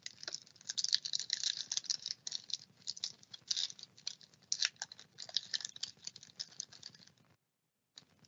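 Trading cards being handled and flipped through: a dense run of quick, irregular crisp clicks and rustles that stops about seven seconds in.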